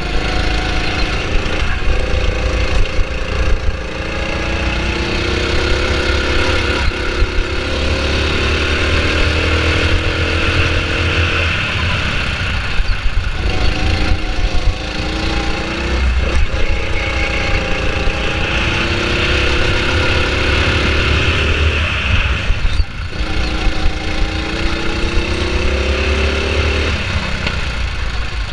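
Go-kart engine under full throttle, its pitch climbing steadily along each straight, then dropping away when the driver lifts for a corner, about five times over, with a deep rumble underneath.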